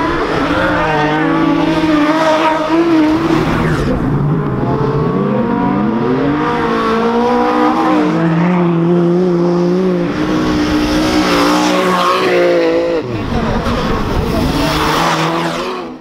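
Rally car engines revving hard through a corner on an ice track, pitch climbing and dropping with each gear change, two engines overlapping at times. Near the end one engine sweeps up quickly, then the sound cuts off suddenly.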